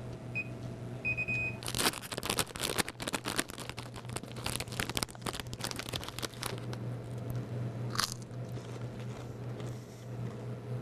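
Two short electronic beeps from a vending machine keypad, then several seconds of dense crackling and crunching, with one sharp click later on.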